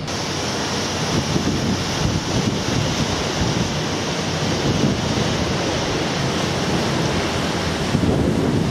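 Wind buffeting the microphone over a steady rushing hiss of sea, with gusty low rumbles.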